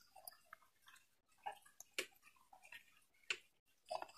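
A few faint, scattered clicks and taps, about four in the space of a few seconds: light handling noise of hands and equipment.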